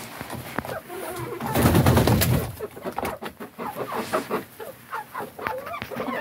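A flock of chickens, hens and a rooster, clucking in agitation, with short calls coming thick in the second half over many sharp clicks. A loud, low burst of noise about two seconds in is the loudest sound.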